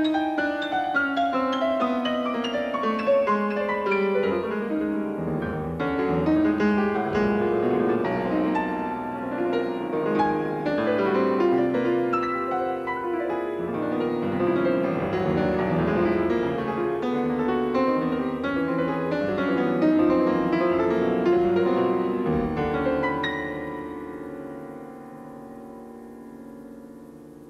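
Solo grand piano playing a dense passage of many overlapping notes; about 23 seconds in the playing stops and the last notes are left to ring out and fade.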